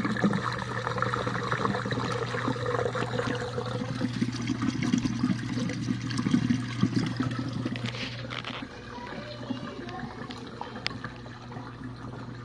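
2020 GE Profile dishwasher draining on its final drain: a steady pump hum under water gurgling and rushing out. The rush of water eases about eight and a half seconds in, while the hum carries on.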